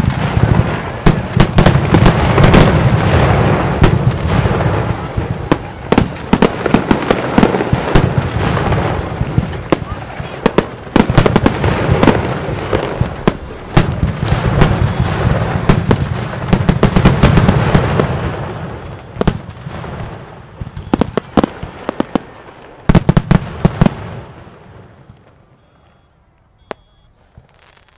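Aerial fireworks bursting in a dense, very loud barrage of booms and crackles that swells in waves. It thins out near the end to a few last bangs and dies away.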